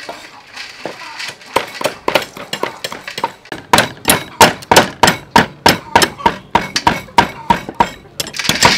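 Several cleavers chopping river snails on round wooden chopping boards: a quick, uneven run of sharp knocks, sparse at first, then coming faster and louder from about a third of the way in.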